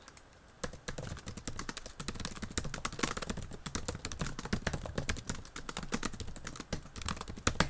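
Typing on a computer keyboard: a quick, uneven run of key clicks starting about half a second in.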